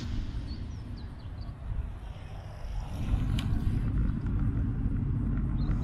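Outdoor roadside ambience: a low wind rumble on the microphone that grows louder about halfway through, with a few faint bird chirps.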